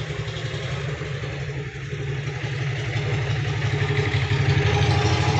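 An engine running nearby with a steady low throb, growing louder about three seconds in.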